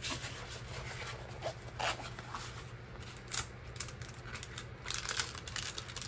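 Clear plastic protective film peeled back from the sticky glue surface of a diamond painting canvas and pressed down again by hand: irregular crinkling and peeling rustles.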